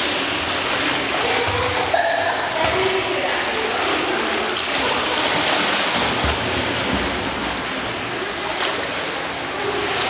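Swimming-pool water splashing and sloshing as children swim, over a steady rush of moving water, with a few sharper splashes and faint, indistinct children's voices.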